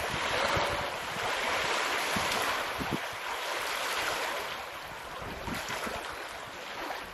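Small waves washing at a lakeshore, with wind gusting on the microphone.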